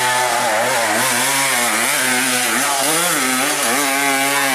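Dirt bike engine held at high revs under load as it climbs a steep dirt hill, its pitch wavering up and down with the throttle.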